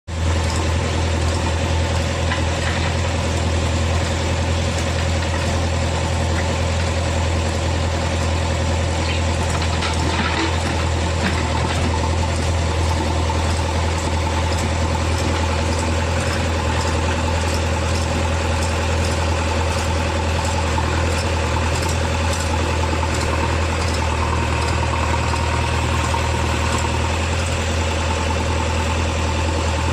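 Heavy diesel engine running steadily at constant speed with a deep hum, with a few faint clicks about ten seconds in.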